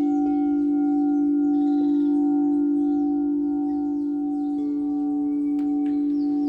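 Singing bowl ringing with a long, steady hum after being struck, several overtones sounding above the low tone. A second, higher-pitched bowl joins about two-thirds of the way through.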